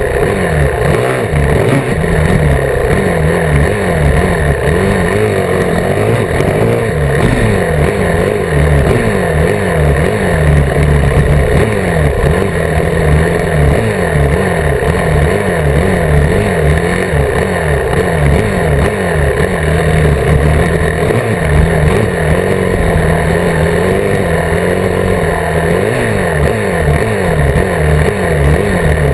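Dirt bike engine being ridden hard along a dirt trail, its pitch rising and falling again and again as the throttle is opened and closed and the gears change, with rushing wind noise over it.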